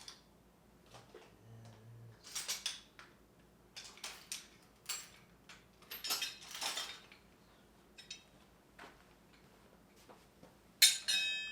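Metal hand tools clinking and clattering as they are picked up and set down in several bursts. Near the end a tool strikes another piece of metal loudly and rings on with a clear tone.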